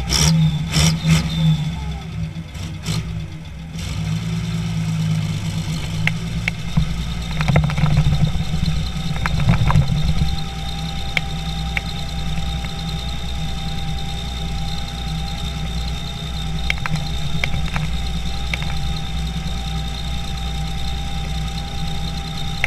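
International Harvester 1055 XL tractor's diesel engine running steadily under way, heard from inside the cab, with a steady whine above the low rumble. Scattered rattles and knocks come through, most of them between about six and ten seconds in.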